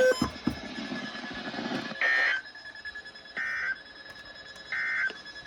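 Three short electronic beeps about a second and a half apart, over a faint steady high tone and background hiss.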